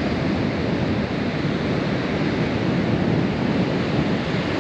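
Ocean surf breaking and washing onto a sandy beach, a steady rushing noise, with wind on the microphone.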